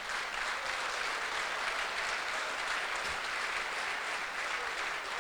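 Audience applauding steadily, then stopping near the end as the speaker resumes.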